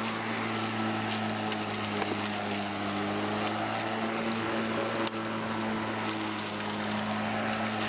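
Echo DLM-310/46P cordless battery push mower running, its electric motor and blade giving a steady hum with a rushing noise as it cuts through long grass. A single sharp click comes about five seconds in.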